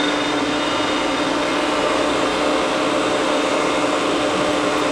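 A Myford MG12-HA hydraulic cylindrical grinder running with its hydraulic pump, grinding-wheel spindle and workhead all turning and the table traversing under hydraulic power. It gives a steady whir with a constant hum and a fainter high whine.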